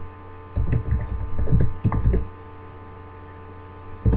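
Steady electrical hum on the microphone line, with a run of loud, low thuds about half a second to two seconds in and one more thud near the end.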